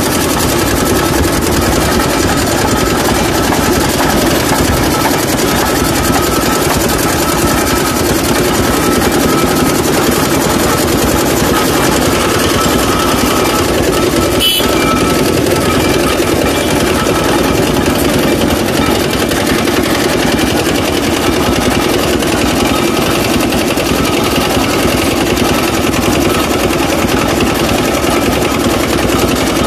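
Motor-driven sugarcane juice crusher running steadily, its gear train and steel rollers droning as cane stalks and ice are crushed between them. A brief sharp click about halfway through.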